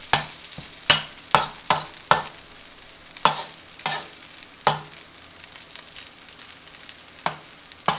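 Metal spatula scraping and clanking against a stainless-steel wok as fried rice is stir-fried, about ten irregular strokes over a faint steady sizzle.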